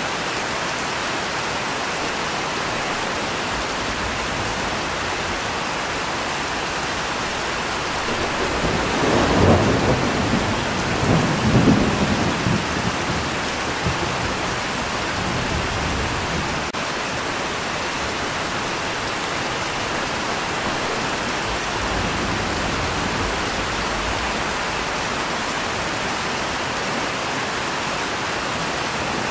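Steady rain falling, with a roll of thunder about eight seconds in that rumbles in two swells and dies away over several seconds.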